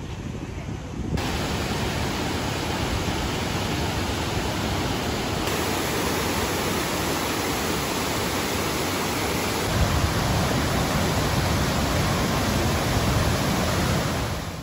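Steady rushing of large waterfalls in high flow, pouring white water down a rocky gorge; it starts suddenly about a second in.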